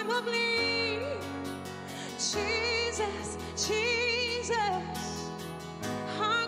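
Slow worship song: a singer holds long, wavering notes over sustained chords and bass, with short pauses between sung phrases.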